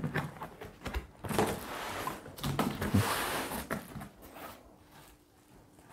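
Rustling and crinkling of plastic wrap and a paper card being handled inside a cardboard box. It comes in several irregular bursts, loudest in the middle, and dies away over the last couple of seconds.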